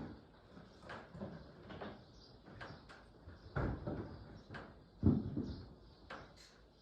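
Irregular clinks and knocks of hand tools being rummaged through and handled, with two louder clatters about three and a half and five seconds in.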